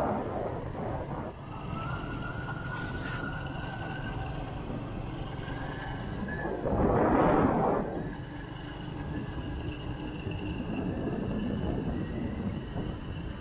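Motorcycle riding steadily along an open road: engine and wind noise with a faint steady whine, and a louder rush about seven seconds in.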